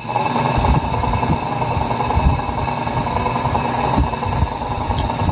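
Small capacitor-run exhaust fan switching on and running: the motor's steady whir with its plastic blade spinning and a constant rush of air.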